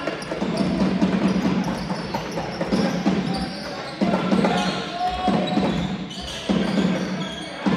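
Basketballs bouncing on a court floor: many overlapping bounces at no steady rhythm.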